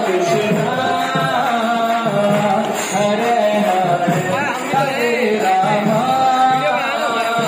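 A devotional song: a voice singing a wavering, ornamented melody over instrumental accompaniment.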